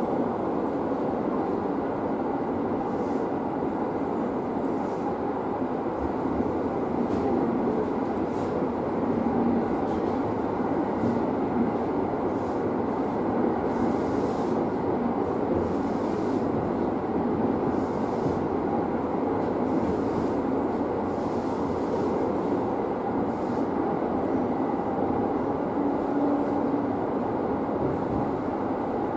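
Running noise of an electric multiple unit train heard from its driver's cab: a steady rumble of wheels on rail, with occasional faint clicks.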